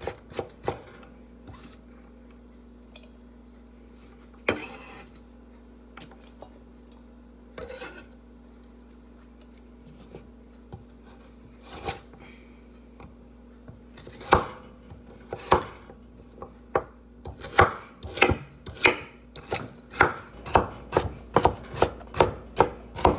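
Kitchen knife chopping carrots on a wooden cutting board. There are a few scattered knocks at first, then, about two-thirds of the way through, a steady run of strikes about two a second that gets quicker near the end.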